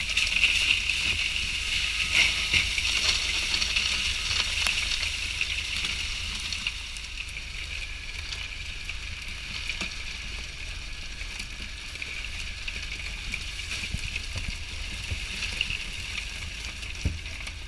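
Crackling, splashing patter of many small horse mackerel flapping in wet heaps in a plastic fish bin as a dip net of fish is emptied into it. It is loudest for the first few seconds, then eases to a lighter patter with a few small knocks. A steady low hum runs underneath.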